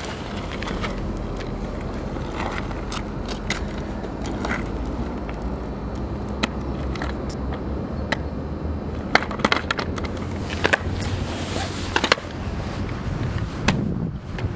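Skateboard on asphalt: scattered knocks and clacks of the board's deck and wheels hitting the tarmac, coming more often in the second half, over a steady low rumble.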